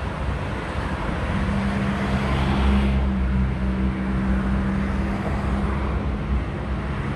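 Road traffic noise: vehicles running past, with a steady low engine hum from about a second in that fades near the end, and a swell of tyre hiss about two to three seconds in.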